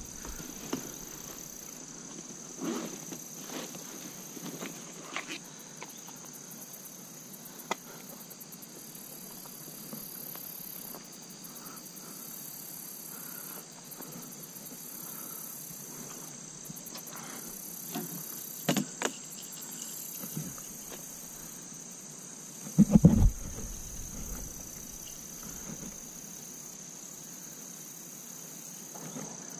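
Steady high-pitched drone of insects calling in the grass, with scattered light knocks and clicks of handling, and one louder muffled bump well past halfway through.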